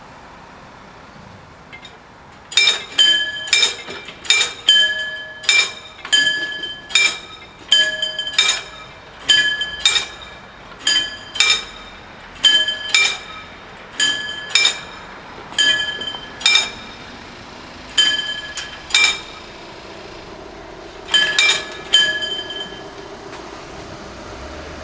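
Level-crossing warning bells ringing in repeated clanging strikes, a little more than one a second, while the barriers lower. They start about two and a half seconds in and stop a couple of seconds before the end, once the barriers are down.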